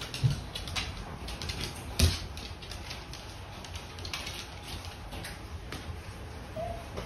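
A beagle's claws clicking and tapping on a wooden floor as it trots about, with a louder thump about two seconds in. A short, high dog whine comes near the end.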